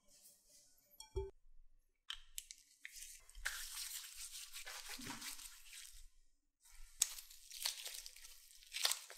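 Disposable plastic gloves rustling and crinkling as the hands rub together to spread cooking oil, then squeezing and pulling sticky glutinous rice cake dough. There is a short knock about a second in.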